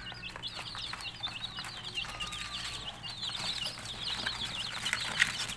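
A brood of week-old chicks peeping without a break: many short, high chirps overlapping one another, with scattered faint clicks.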